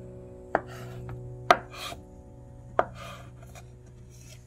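Knife chopping on a cutting board: three sharp, unevenly spaced strokes and one lighter tap.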